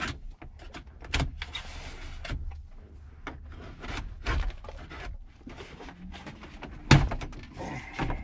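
Plastic dash trim on a 2006 Toyota Tundra being pried loose with plastic trim-removal tools: scraping and a string of small clicks as the retaining clips give, with one sharp snap about seven seconds in.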